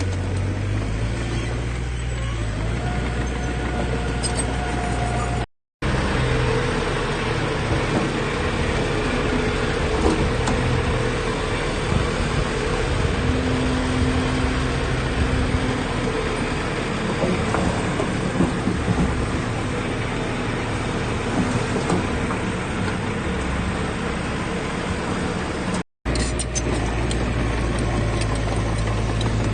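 Heavy diesel earthmoving machinery running steadily, a low engine drone with a noisy rattle over it. The sound drops out to silence briefly twice, about six seconds in and near the end.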